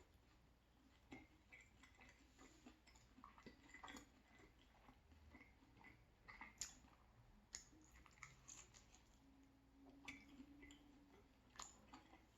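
Faint chewing of pizza close to the microphone: irregular soft mouth clicks and wet smacks.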